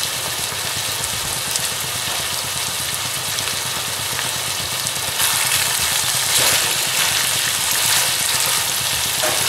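Boneless chicken pieces sizzling steadily as they fry in oil in a frying pan, the water they gave off already cooked away. The sizzle grows louder in the second half, when a wooden spatula stirs the pieces.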